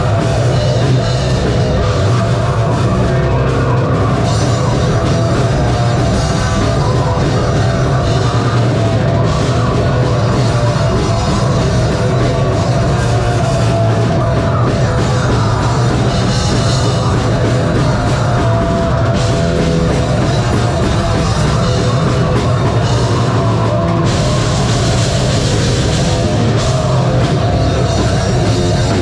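Metalcore band playing a song live, with a pounding drum kit and heavy distorted guitars at a loud, steady level.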